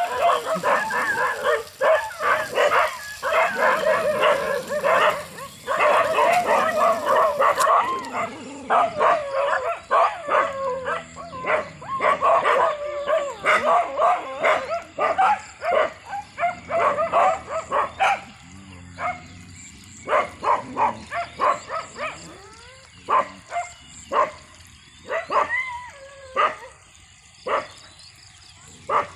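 Several dogs barking at once, in a dense overlapping burst of short barks for most of the first two-thirds, then thinning to scattered single barks.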